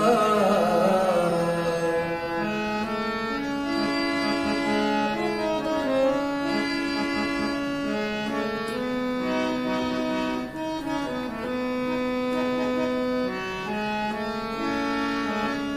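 Harmonium playing the instrumental interlude of a ghazal: a slow melody of held reedy notes, often two sounding together, moving from note to note.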